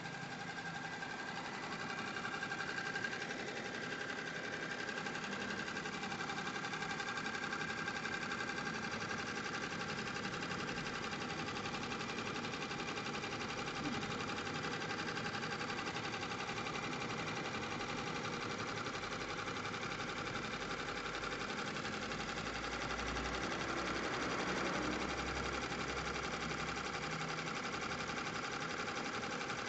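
Single-head computerized embroidery machine running and stitching: a steady, fast mechanical clatter.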